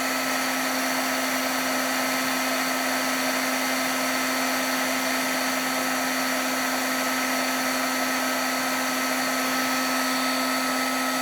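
Craft heat embossing tool running steadily, its fan blowing hot air with a constant hum and a high whine, melting clear embossing powder.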